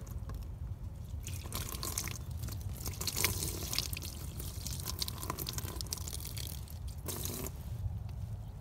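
Hot water poured from a plastic bucket over a frozen outdoor faucet to thaw it, splashing and trickling. The pour starts about a second in and stops abruptly shortly before the end.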